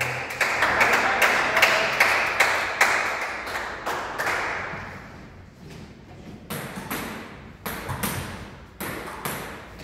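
Sharp taps and clicks echoing in a large hall between table tennis points. They come thick at first and thin out to a few single taps.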